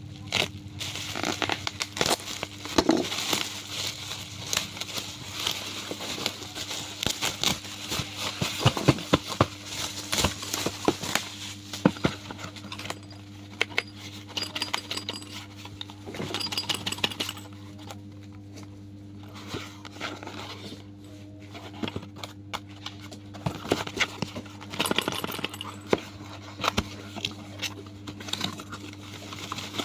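Packaging being handled and unwrapped: irregular crinkling and crackling with many sharp clicks and taps, and a few short clinks of glass. A steady low electrical hum runs underneath.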